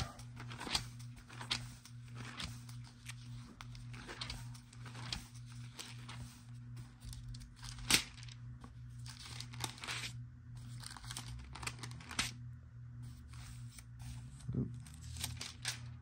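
Thin 28 GSM Bible paper pages being flipped and turned by hand: a string of soft, irregular rustles and crinkles, with a sharper page snap about eight seconds in. A steady low hum runs underneath.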